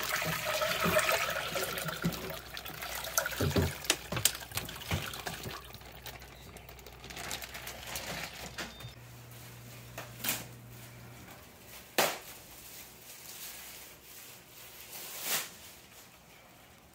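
Liquid from a bagged raw turkey pouring and splashing into a metal saucepan in a sink for the first couple of seconds. Then a few scattered sharp knocks and clicks follow as the pot and bag are handled.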